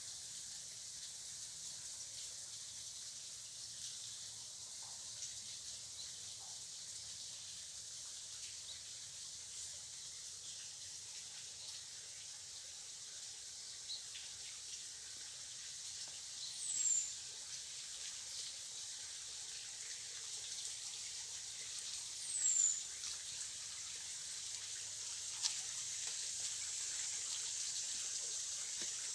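Rainforest outdoor ambience: a steady high hiss, with two short, high, falling chirps, one past the middle and another about five seconds later.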